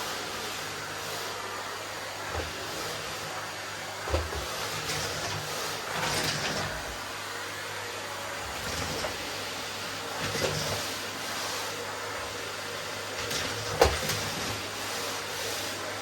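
Vacuum cleaner running steadily, with a few short knocks, the loudest near the end.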